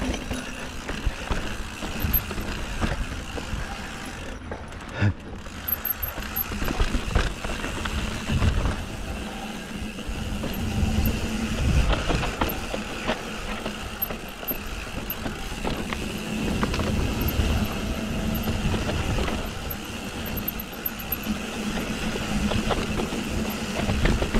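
Mountain bike riding down a steep rocky dirt trail: tyres rolling over sand and sandstone steps, with the bike knocking and rattling over the bumps and drops.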